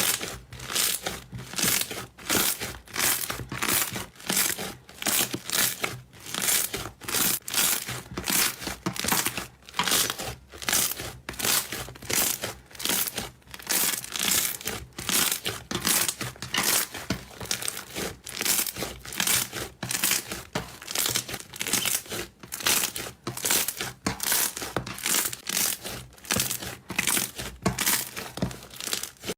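Slime being squeezed and pressed by hand over and over, about two or three noisy presses a second.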